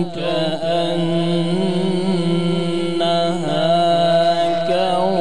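Male Quran reciter chanting in melodic tajweed style, drawing out long wavering, ornamented notes. One long held phrase breaks off a little past halfway, and a new phrase begins.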